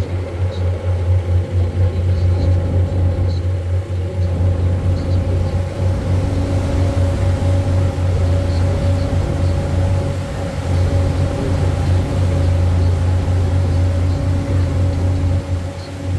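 A river cruise boat's engine running at a steady cruising pace: a constant low drone.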